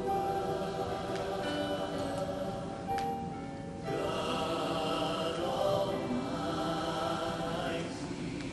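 Choral music with long held notes, dipping briefly about three seconds in and then swelling again.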